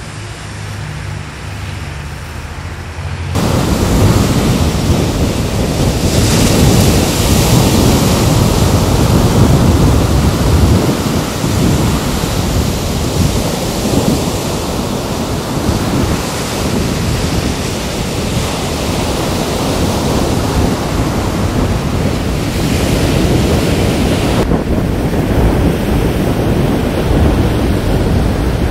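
Wind buffeting the microphone over surf breaking on a beach: a loud, steady, rumbling noise that starts suddenly about three seconds in.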